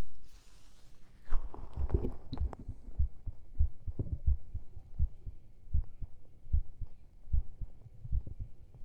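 Close-miked stomach fizzing after drinking soda: a few small crackles and pops about one to two seconds in, then soft low thumps about once a second.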